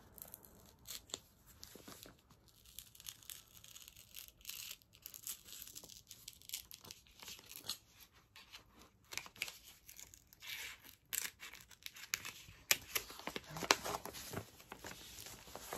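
Kraft paper envelope being handled: its sticker seal is slowly peeled off the flap with intermittent crackling and peeling sounds, then paper rustles as a booklet is slid out. The crackles come thicker over the last few seconds.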